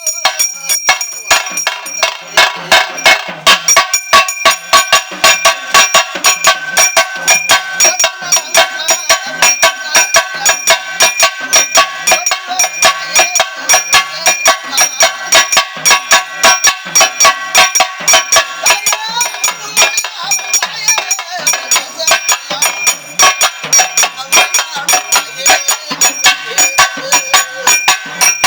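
Pambai drums beaten fast with sticks in a dense, driving rhythm, with steady metallic ringing carried over the beats.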